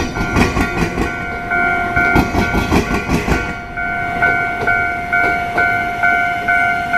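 Level-crossing warning bell ringing in a steady, rapid ding-ding, about two strokes a second. Over it, a rail vehicle's wheels clatter over the level diamond crossing in a fast run of clacks that thins out about three and a half seconds in.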